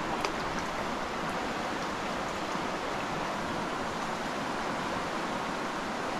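Steady rushing of a fast-flowing stream, with a small sharp click about a quarter second in.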